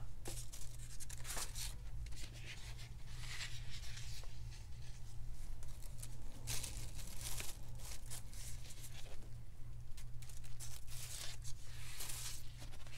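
Sheets of coffee-dyed paper rustling and crinkling in irregular bursts as they are handled and shuffled.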